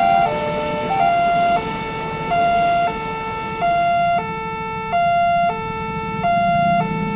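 Level-crossing electronic warning alarm sounding, alternating a high and a low tone about every 0.6 s, over the rumble of a passing train that fades after a few seconds. Engine noise from the waiting motorbikes rises near the end as the barriers lift.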